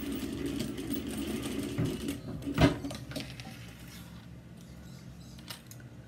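Sewing machine stitching across the folded end of a zipper tab, running fast and even for about three seconds and then stopping. A sharp click comes just before it stops.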